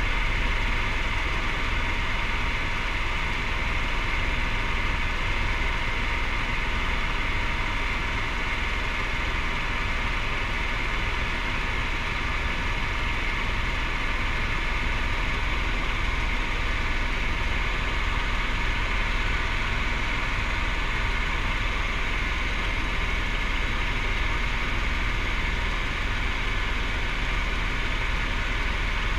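Helicopter in cruising flight, heard from inside the cabin: a steady drone of engine and rotor, a constant high whine over a low rumble, unchanging throughout.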